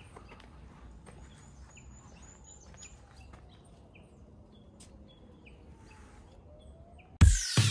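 Small birds chirping with scattered short calls and one quick run of high notes over a quiet outdoor background. Near the end, loud electronic music with falling sweeps and heavy beats cuts in suddenly.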